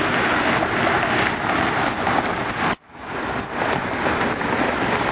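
Steady rushing jet noise of a Boeing 777 airliner's two engines on final approach to land. It cuts out suddenly a little before the three-second mark and comes back within half a second, where two pieces of footage are joined.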